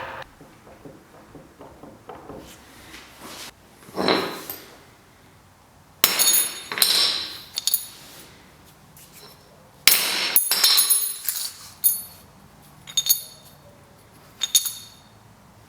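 Hard objects clinking and knocking: a series of sharp strikes with short, bright metallic ringing, the loudest about six and ten seconds in.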